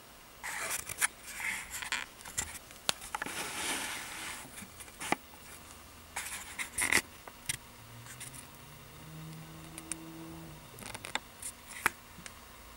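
Scattered rustling and sharp clicks, loudest in the first few seconds, with a faint low drone that rises and holds for a couple of seconds near the end.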